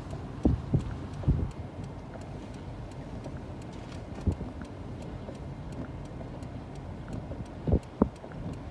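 Steady low rumble of a vehicle running, with a few soft thumps scattered through it.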